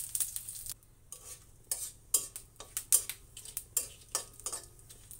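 Whole spices (dried red chillies, cumin, cinnamon, cardamom, bay leaves) sizzling in hot oil in a kadai. They are stirred with a spatula in short scraping strokes against the pan, about two a second.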